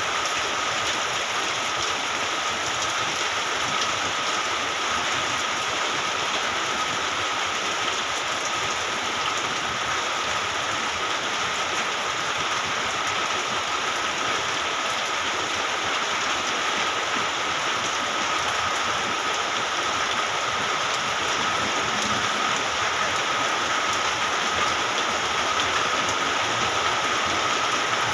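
Steady heavy rain falling, an even hiss that does not let up, with a thin steady high tone running underneath.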